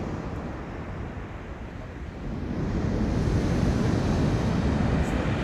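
Sea waves washing onto the beach as a steady rushing surf, swelling louder about halfway through as a wave comes in.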